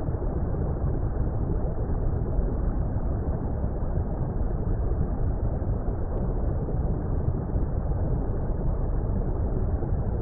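Steady, deep water rumble: an even, low underwater-style noise with no high end, holding level throughout.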